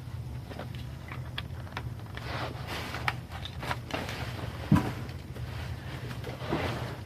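A plastic toy and its packaging being handled: scattered small clicks and rustles, with one louder knock a little past halfway, over a steady low hum.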